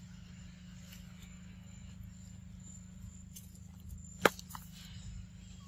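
A single sharp snap about four seconds in, over a steady low hum.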